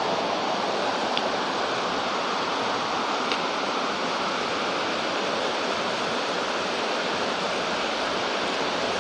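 Steady, even hiss with two faint ticks, about one and three seconds in.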